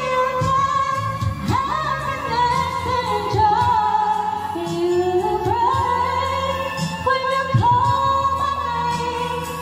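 A woman singing karaoke into a corded microphone over a backing track, drawing out long, held notes.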